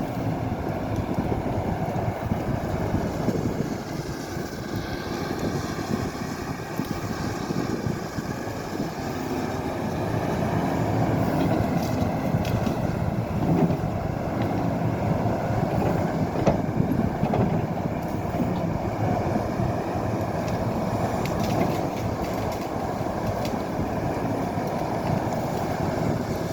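Excavator's diesel engine running steadily, with a few brief knocks.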